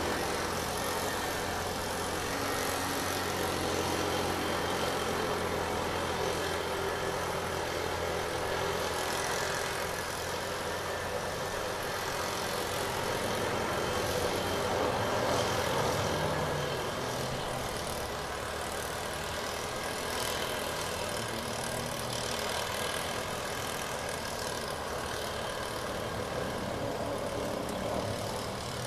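An engine running steadily, with a low hum that changes about two-thirds of the way through.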